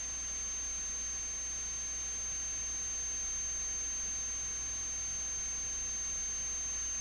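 Steady electrical background noise: an even hiss with a low hum and a constant thin high-pitched whine, unchanging throughout.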